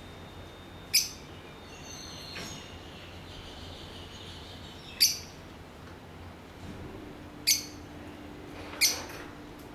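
Lovebirds giving four short, sharp, high-pitched chirps, spaced a few seconds apart.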